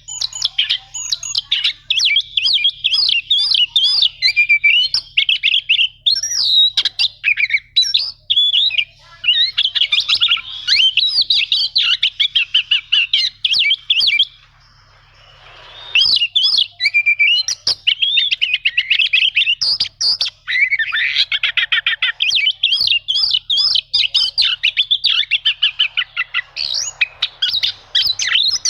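Oriental magpie-robin singing a long, fast song of rapid repeated trills and whistled notes, with a pause of about a second and a half near the middle.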